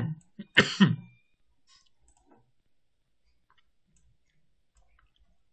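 A man coughs twice in the first second, two short, loud coughs. After that, faint computer mouse clicks come now and then.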